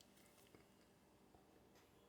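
Near silence: faint room tone with a few tiny clicks.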